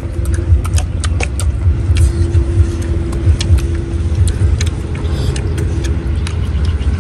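A steady, loud low rumble with a faint hum in it, over which come many small sharp clicks and crackles from boiled eggshells being peeled and eaten by hand.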